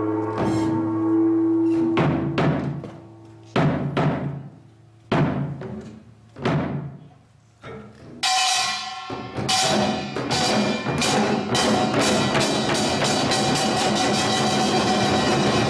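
Korean samulnori percussion ensemble on janggu hourglass drums and buk barrel drums: a few widely spaced single strokes ringing out, then about eight seconds in the whole group breaks into a fast, dense rhythm.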